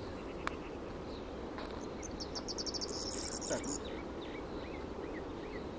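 Outdoor ambience: a steady low rumble with small birds chirping. About two seconds in there is a quick high trill, then a few short falling chirps.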